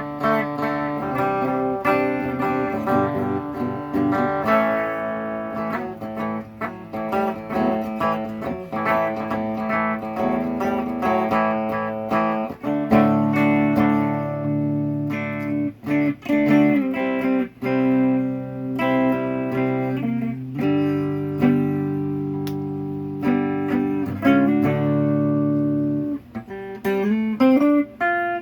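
Squier Custom Telecaster electric guitar played through amplifiers, with its signal split between a tube amp and a solid-state amp: chords picked and let ring, mixed with single picked notes, and a few bent notes near the end.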